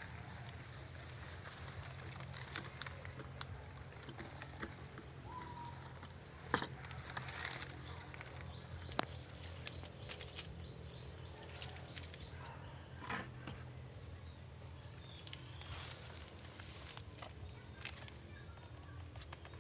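Dry nipa palm fronds and husks rustling, with scattered sharp snaps and clicks, as a nipa fruit cluster is handled on its stalk.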